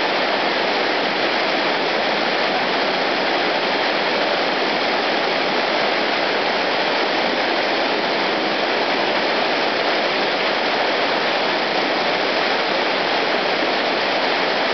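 Whitewater rapids rushing steadily, a constant hiss and roar of churning river water.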